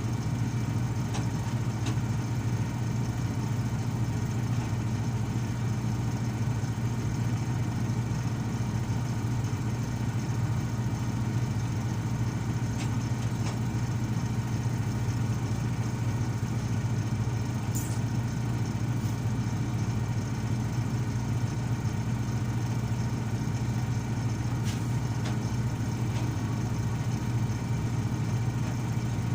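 Komatsu PC220 excavator's diesel engine running at a steady, even speed: a constant low hum with no revving.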